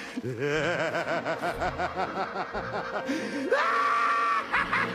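The animated Joker's laugh: a rapid run of "ha-ha" pulses that rises about three seconds in to a long, high-pitched cackle, then breaks back into quick laughs near the end.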